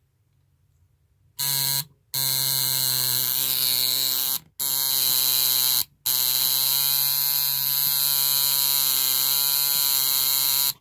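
Freshly reassembled coil tattoo machine buzzing as it is powered on and off in four runs, a short one about a second and a half in and then longer ones with brief breaks, while it is being adjusted.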